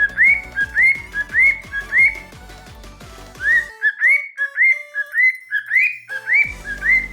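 Cockatiel whistling a learned tune: a run of short, rising whistle notes, about two a second.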